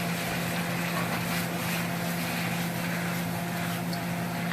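Pork with peppers and onions sizzling steadily in a pan over high heat, with a steady low hum underneath.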